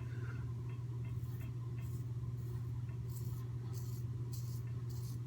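Merkur 34c safety razor with a Polsilver blade scraping through lathered stubble against the grain, in short strokes that become regular, about two a second, from about halfway through.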